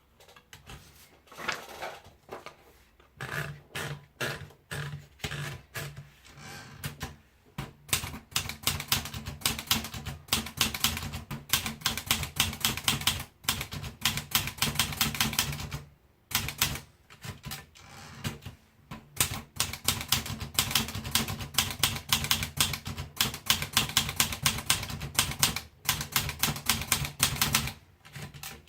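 Olivetti Lettera 32 manual portable typewriter being typed on: sharp key strikes, spaced out at first, then a fast run of several a second broken by a few short pauses.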